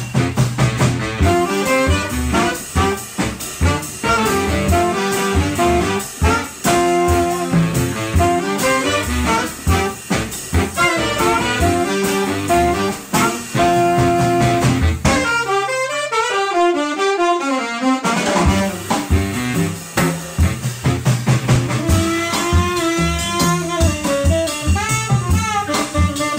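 Jazz saxophone section of two altos, tenor and baritone, with bass and drum kit, playing an up-tempo ensemble passage. About halfway through, the bass and drums drop out for a few seconds, leaving the saxophones alone on fast, interweaving runs, before the full band comes back in.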